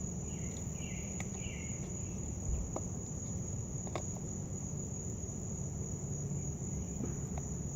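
Crickets trilling steadily on one high pitch, over a low rumble, with a few faint clicks a few seconds in.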